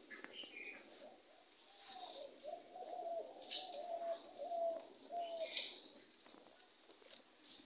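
A dove cooing in a run of repeated low notes, with short high chirps from a small bird about every two seconds.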